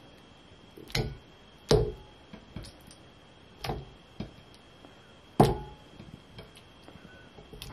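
Raw chicken pieces set down one after another into a glass bowl of chopped onion: about five sharp, wet thuds, each with a brief knock of the glass, the loudest near the start and about five seconds in. A faint steady high whine runs underneath.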